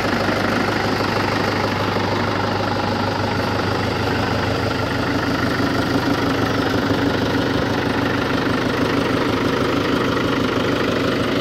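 Mahindra tractor's diesel engine idling steadily, heard close up.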